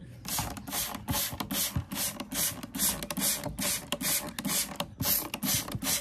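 Hand trigger spray bottle pumped rapidly, each squeeze giving a short hiss of water spray, about four squirts a second, misting a parakeet during its bath. A short break comes about four and a half seconds in.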